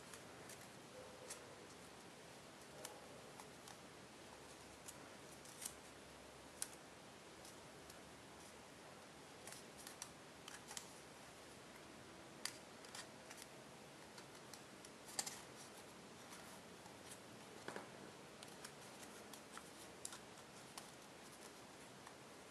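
Faint, irregular crinkling and sharp little crackles of tissue-foil paper being folded and creased between the fingers, over a steady low hiss.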